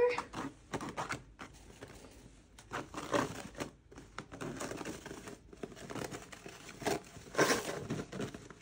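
Paper towel rustling and crinkling in irregular bursts as a squirrel claws and pulls at a hanging roll, with the loudest burst near the end.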